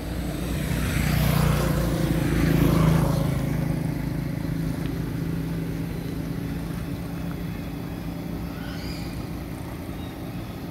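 A motor vehicle passing on the road: its engine noise swells to a peak about two to three seconds in, then eases back to a steady low hum.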